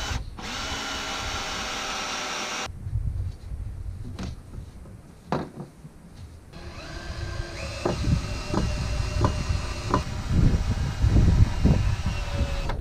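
Cordless drill driving decking screws into 2x4 lumber: a steady motor whine for the first three seconds or so, then from about halfway another run of the drill with a string of knocks of wood and screw.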